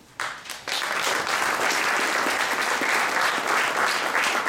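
Audience applauding: a few separate claps at first, swelling within the first second into steady applause.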